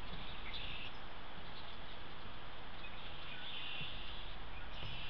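Outdoor ambience: a steady hiss with faint, short high-pitched chirps several times, near the start, past the middle and at the end.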